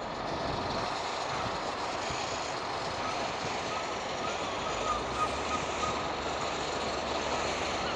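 Class 185 diesel multiple unit running along the track past the crossing, a steady rumble of engine and wheels that grows heavier in the low end about halfway through.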